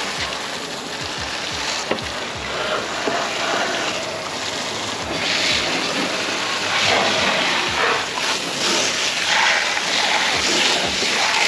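Garden hose spraying water onto a plastic kayak hull, rinsing off dried sea salt: a steady spray hiss that grows stronger and patchier in the second half as the stream moves over the hull.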